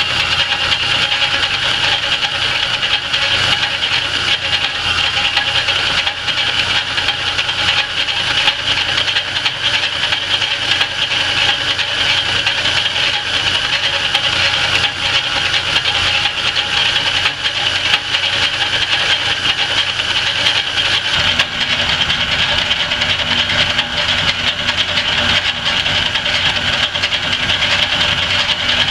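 Antique Rockford lathe running steadily while a lathe tool faces off a spinning steel flat bar: a steady machine drone and cutting hiss with a high tone over it. The low hum shifts about two-thirds of the way through.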